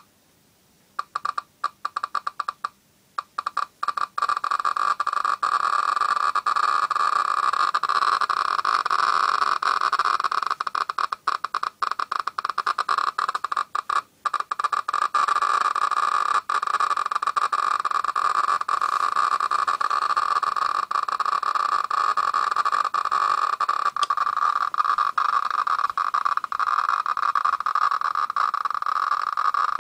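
F&H SV-500 Geiger counter with a Philips ZP1430 end-window tube clicking: scattered clicks start about a second in and within a few seconds crowd into a dense, almost continuous crackling buzz. It is a high count rate from the radium-226 in an RZC1031 cold-cathode tube held at the probe.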